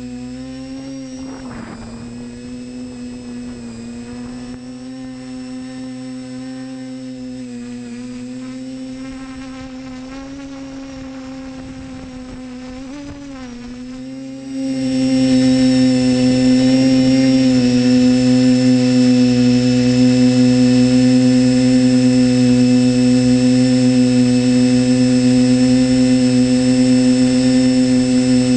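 Drone's electric motors and propellers whining steadily as heard from the onboard camera. About halfway through the whine jumps suddenly louder and a little higher, then holds steady as the drone climbs.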